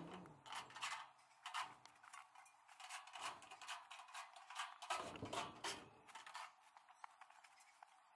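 Faint, irregular clicks, taps and rustles of a person walking about and handling a cordless drill/driver, mostly in the first six seconds and sparser after.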